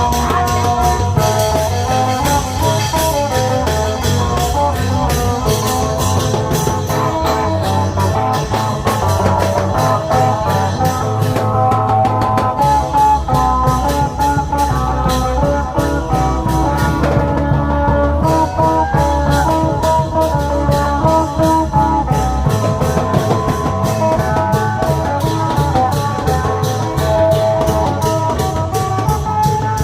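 Isan klong yao long-drum band playing a lively, fast procession rhythm with cymbals, carrying an amplified plucked-string melody.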